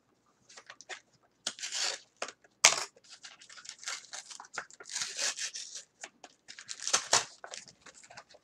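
Rustling and crinkling of card-game packaging and cards being handled, in short irregular bursts with a sharp snap about three seconds in.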